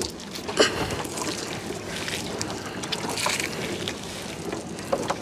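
Small fishing boat on the river: water sloshing around the hull, with a couple of brief knocks, one early and one near the end.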